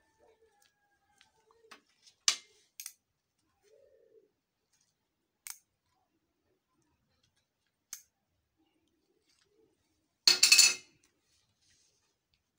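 Small metal tool and parts handled by gloved hands over a ceramic plate on a glass table: a few sharp clicks, then a short louder rasping clatter about ten seconds in. A dove coos faintly now and then.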